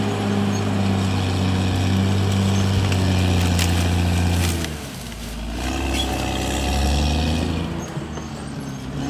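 CAT D6R XL bulldozer's diesel engine running hard with a steady pitch. About halfway through the engine speed sags and the sound drops, then it picks back up and sags again near the end.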